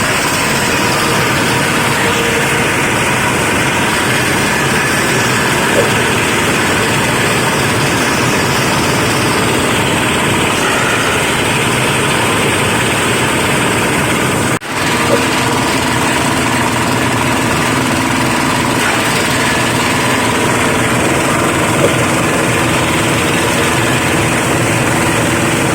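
Veneer waste crusher (hammer-mill type shredder) running steadily with a loud, even machine noise and hum. The sound drops out for an instant about fifteen seconds in and then goes on.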